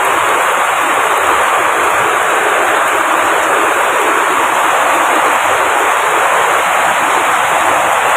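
Heavy rain falling, a steady loud hiss.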